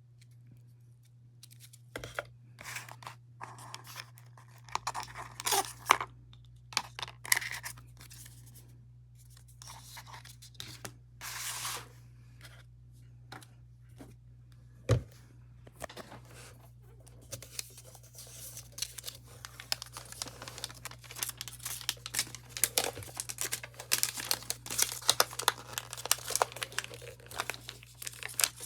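Packaging of a new Mac mini being torn open and handled: irregular bursts of paper tearing, scraping and clicks, with a sharp knock about halfway, then dense continuous crinkling through the second half. A steady low hum runs underneath.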